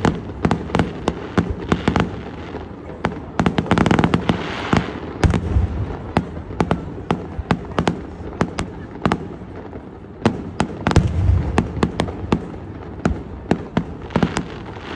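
Fireworks display: aerial shells bursting in a fast, uneven run of sharp bangs, with a denser stretch of crackling about four seconds in and heavier low booms around five and eleven seconds in.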